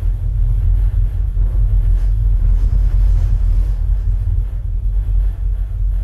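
Deep, steady bass rumble from an SVS SB-3000 subwoofer playing a film soundtrack at high volume, with little above the low bass.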